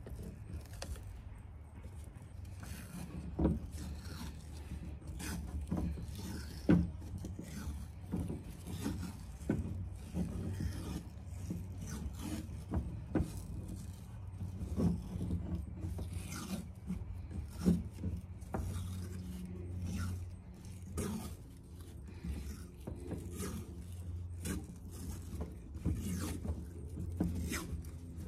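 Cloth tape being pulled off its roll in irregular rasping strips and wound tightly around a curved tube, with a few sharp knocks as the tube and roll are handled. A steady low hum runs underneath.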